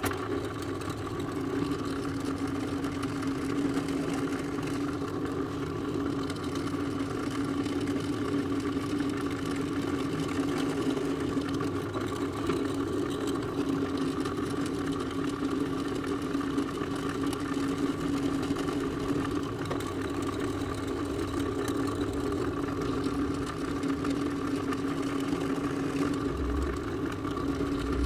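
Pedestal drill press motor running steadily with an even hum, its bit drilling holes in a blue plastic sheet.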